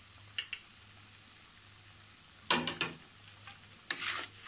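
A metal spoon stirring and scraping through frying curry masala in a black karahi, over a faint sizzle. There are two light clicks about half a second in, then louder scrapes around two and a half seconds and again near the end.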